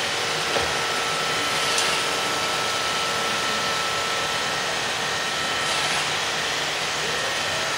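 iRobot Roomba robot vacuum running steadily: an even whirring hum with a thin, constant whine over it.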